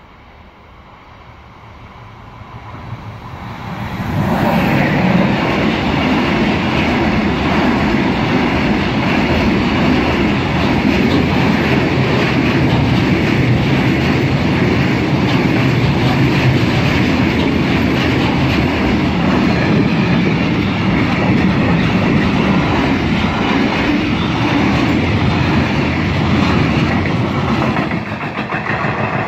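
Freight train approaching, growing louder over the first four seconds, then passing close by for more than twenty seconds with a steady rolling rumble and a rapid clatter of wagon wheels over the rail joints.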